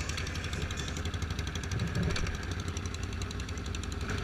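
ATV engine idling with a steady, fast pulsing beat.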